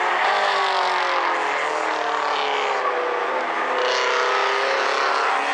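Several small four-cylinder race cars running together, their engines easing off and then revving back up, so that overlapping engine notes fall and rise in pitch.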